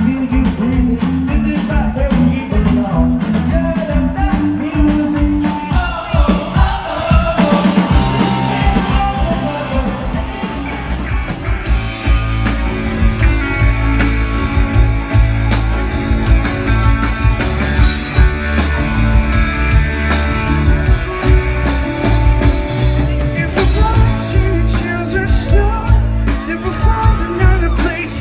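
A live rock band plays with singing, recorded from within the crowd on a phone. Several seconds in, the music cuts to a different band and song.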